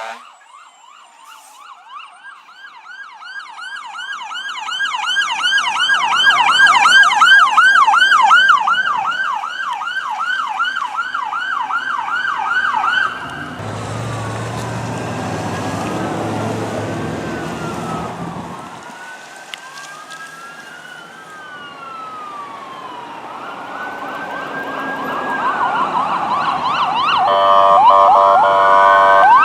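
Emergency vehicles' electronic sirens passing one after another. First a fast yelp siren grows louder and then fades. Slower wail sirens follow, with a deep engine rumble from a heavy vehicle going by, then a short horn blast about a second before the end as a louder siren closes in.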